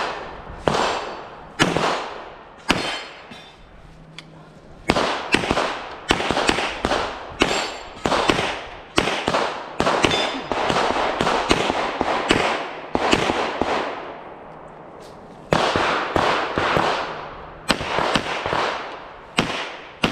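Strings of rapid pistol shots fired during a USPSA Carry Optics stage, many in quick pairs, each ringing out with an echoing tail. The firing breaks off briefly twice, once a few seconds in and again about three quarters of the way through.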